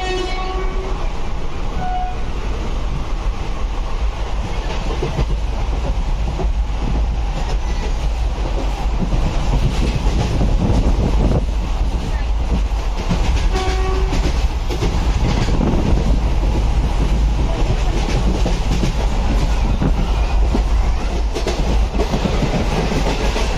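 Steady rumble and wheel clatter of an Indian Railways express train running at speed, heard inside a non-AC passenger coach. The train's horn sounds briefly twice, right at the start and again about 14 seconds in.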